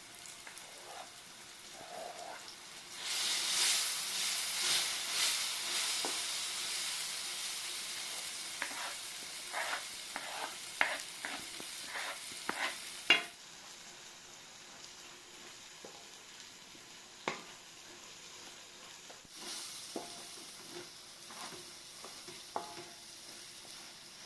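Food frying in hot oil in a pan: a loud sizzle flares up about three seconds in and slowly fades, with a spoon tapping and scraping the pan as it is stirred. The sizzle drops away abruptly, and flares briefly again near the end.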